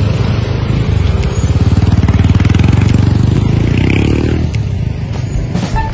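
Motorcycle engine running close by, rising in pitch as it speeds up about three to four seconds in, over the steady sound of street traffic.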